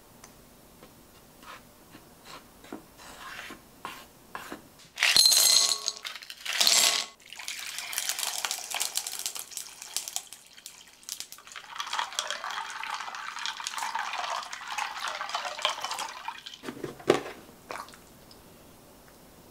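Water poured over ice cubes in a glass bowl, splashing and crackling for several seconds. It is preceded by faint clicks and two short loud clattering bursts, and followed by a brief wet sound near the end as a marinated chicken leg is handled.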